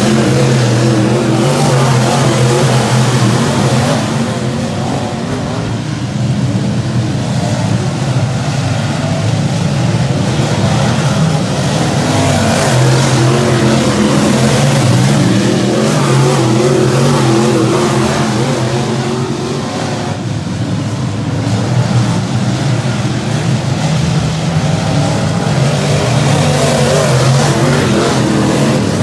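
Several dirt-track modified race cars' engines running hard together as the pack races through a turn. The sound is loud and continuous, with overlapping engines that swell and ease a little as cars pass.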